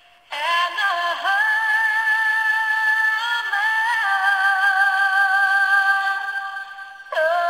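A solo voice singing long, held notes with vibrato, scooping up into them, thin and without bass. One long phrase fades out near the end and the next note starts just before the end.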